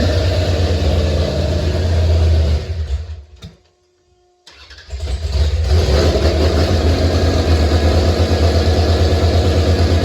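Carburetted car engine running, then dying away about three seconds in. After about a second of quiet it is started again, catches and settles back into a steady run.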